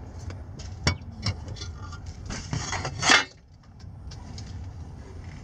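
Hand-handling noises from the fuel pump assembly and a shop towel being worked out of the fuel tank opening: a few light metallic clicks about a second in, then a louder scraping rustle that peaks about three seconds in and stops.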